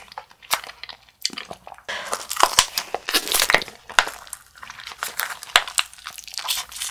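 Clear plastic wrapper of a jelly candy crinkling and tearing as it is peeled open by hand: a busy run of sharp crackles, thickest in the middle.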